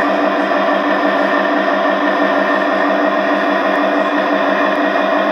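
Diesel engine sound from the LGB SD40 model's DCC sound decoder, played through the model's own speaker: a steady engine note with a quick, even pulse. It sounds thin, with no deep bass.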